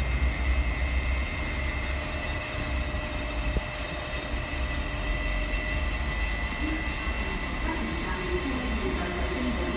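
East Rail line electric train: a low rumble, heaviest in the first second and then easing, under several steady high-pitched whines.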